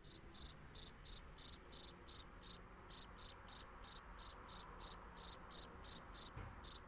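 Cricket chirping as a sound effect: a steady train of short, high chirps about three a second, with brief pauses about a third of the way in and near the end. It serves as the comic 'crickets' cue for a stunned silence.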